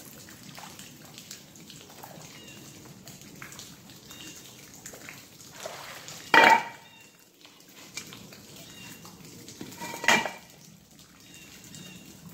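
Two sharp, ringing metallic clanks from a large magnet-fishing magnet on its rope knocking against something hard, about six seconds in and again about four seconds later, over faint dripping water.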